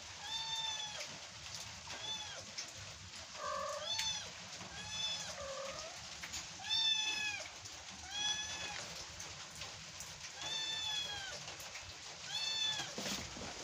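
A kitten meowing over and over, a high call that rises and falls, repeated about once a second. It is calling because it is stuck up high and wants to get down. Two lower, shorter calls come in near the middle.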